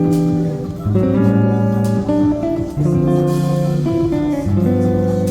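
Background music: guitar chords, plucked and strummed, changing about once a second.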